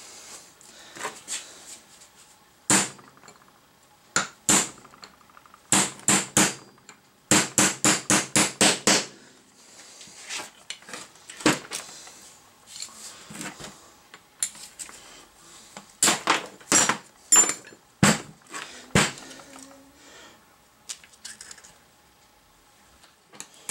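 Ball-peen hammer striking a steel steering knuckle in sharp metallic blows. They come singly at first, then in a quick run of about seven at roughly four a second around eight seconds in, with a few more later. Some blows leave a short ring.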